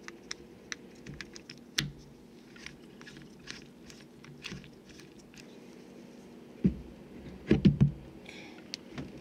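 Small metal clicks and ticks of a hand tool working at the base of a Barient 28 self-tailing winch's stem. A little before two-thirds of the way in come one clunk and then a quick cluster of heavier metal clunks as the winch's gear body is worked loose and lifted from its deck mount.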